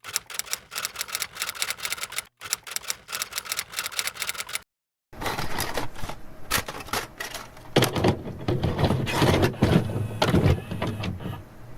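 Rapid, even clicking, several clicks a second, broken by a short gap and then a half-second of silence about five seconds in. After that it turns into a denser, noisier clatter with a low rumble underneath.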